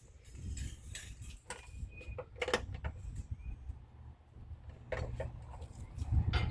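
Scattered light clicks and knocks of metal parts and tools being handled while farm equipment is worked on, over a steady low rumble. The sharpest knock comes about two and a half seconds in, with another near the end.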